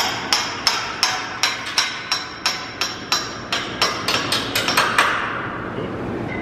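Hammer blows on steel driving a bolt into place: sharp ringing strikes about three a second that quicken near the end and stop about five seconds in.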